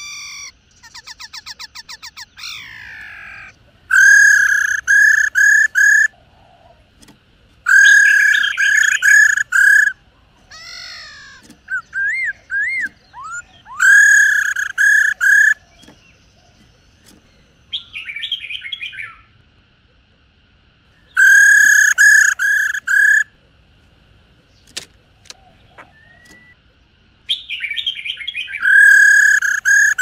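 Black-throated laughingthrushes calling: loud phrases of three or four repeated ringing notes, each about two seconds long, come every few seconds. A fast rattling trill sounds near the start, and short gliding whistles fall between the phrases.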